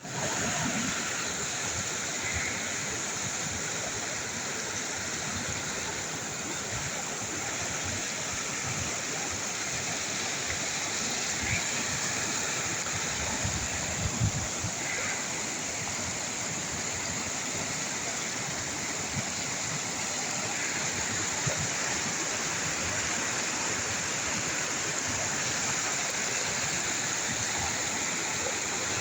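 Waterfall rushing: a steady, even wash of falling water, with a few brief low thumps about halfway through.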